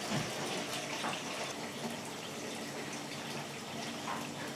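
Water running steadily from a tap, with a few faint light clicks.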